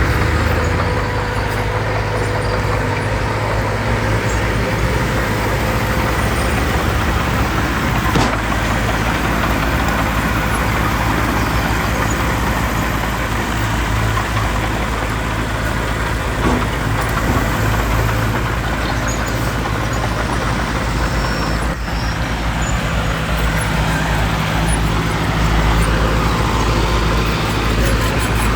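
Diesel engines of heavy earthmoving machinery running steadily, with a single sharp knock about eight seconds in.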